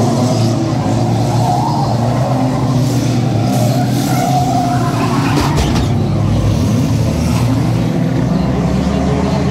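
Several banger racing cars, old road cars, running their engines hard together as the pack races past through a bend, a steady mixed engine noise with pitches rising and falling. A few sharp knocks come a little after halfway.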